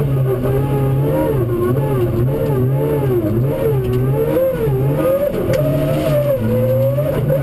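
Rally car engine heard from inside the cockpit, its revs rising and falling over and over as the driver accelerates, lifts and shifts along the stage.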